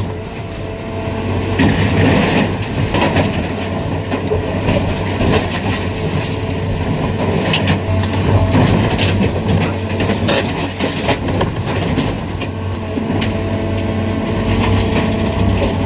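A heavy machine's engine running steadily, with frequent irregular knocks, clanks and crunching over it, as of heavy machinery working on a demolition.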